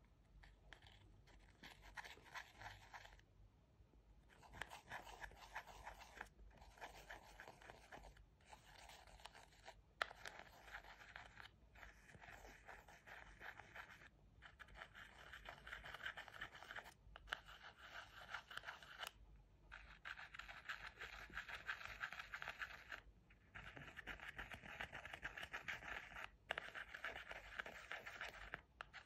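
A clear plastic tool scraping into the pans of a pressed-eyeshadow palette, crumbling the powder: faint, gritty scratching in spells of a few seconds, broken by short pauses.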